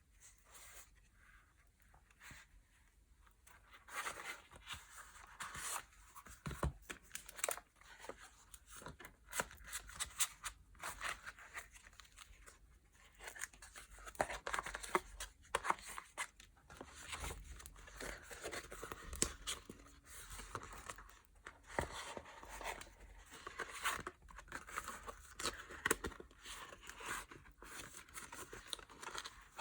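Packaging being unwrapped and crinkled by hand, in dense, irregular rustles and crackles that start about four seconds in.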